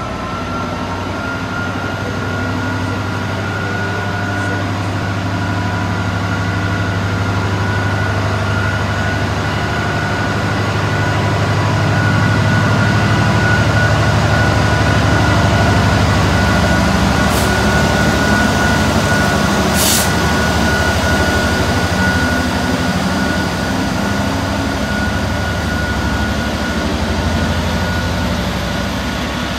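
GB Railfreight Class 66 diesel locomotive, with its two-stroke V12 engine, passing on a freight train. The engine's low drone swells as the locomotive draws level about halfway through, then eases as the hopper wagons roll by, with a steady high whine throughout. A short sharp hiss comes about two-thirds of the way through.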